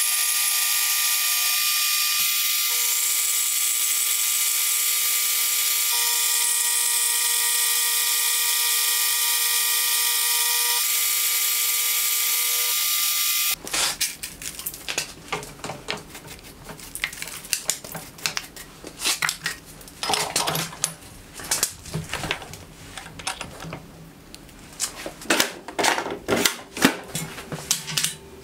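A milling machine runs steadily with its end mill in a slot cut into a round steel fly cutter body. A little under halfway in, this gives way to a stiff brush sweeping metal chips off the machine vise in short, irregular scraping strokes, some of them louder near the end.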